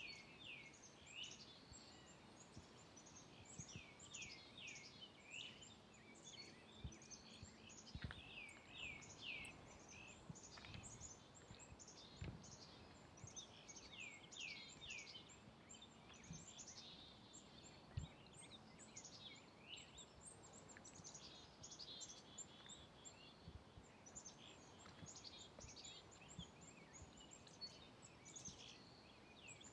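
Faint songbird song: repeated phrases of quick down-slurred chirps, several notes a second, recurring throughout over a low, steady outdoor background noise. A few soft low thumps are scattered through it.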